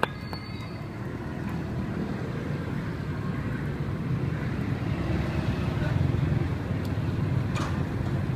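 Low rumble of passing street traffic, with a vehicle engine growing louder around the middle, and a sharp click at the start.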